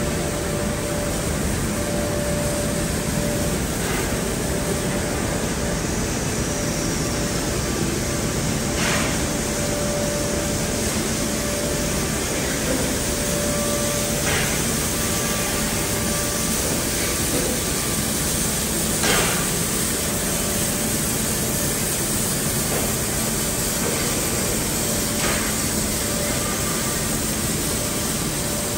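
AD60-class Beyer-Garratt steam locomotive 6029 standing at the platform: a steady hiss of steam under a constant hum, broken by a few short, sharp hisses several seconds apart.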